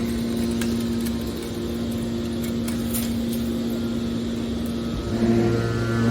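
Hydraulic can baler's electric motor and hydraulic pump running with a steady hum. About five seconds in, a deeper hum comes in and it grows louder.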